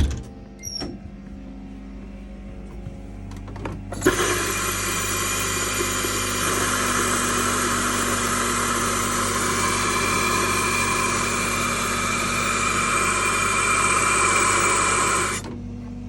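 An air compressor hums steadily. About four seconds in, a loud hiss of compressed air starts abruptly, air being blown through the camper's water lines to clear them of water before freezing weather, and holds for about eleven seconds before cutting off suddenly near the end.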